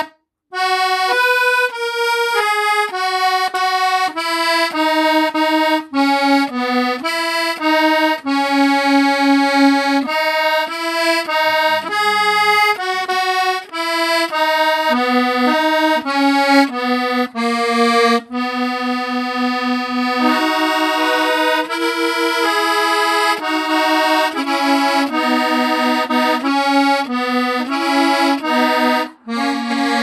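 A squeeze box playing a tune: a melody over held chords, with the notes changing about every half second and a brief break near the end.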